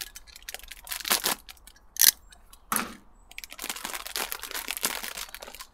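Clear plastic packet of dried marigold being opened by hand: a few short sharp rips and crackles over the first three seconds, the loudest about two seconds in, then dense crinkling as the bag is pulled open.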